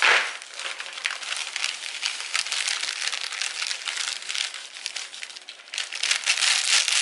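Plastic bag of dry brownie mix crinkling as it is tipped and shaken, the powder pouring out into a plastic mixing bowl. The crackling is loudest at the start and keeps up with many fine ticks, easing briefly near the end.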